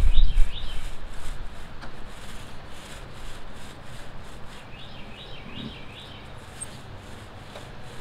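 Paint roller rubbing solid deck stain onto a wooden post, a steady scratchy rolling sound, louder with a low rumble in the first half second. A bird gives a quick run of high chirps near the start and again about five seconds in.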